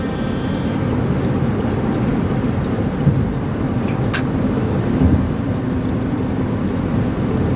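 Steady road and engine noise of a car at highway speed, heard from inside the cabin as a low rumble, with a sharp click about four seconds in and a couple of faint thumps.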